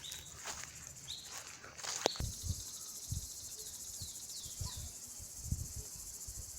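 A steady high-pitched insect chorus, crickets by their sound, with short falling bird chirps over it. There is a sharp click about two seconds in, followed by a run of soft low thumps.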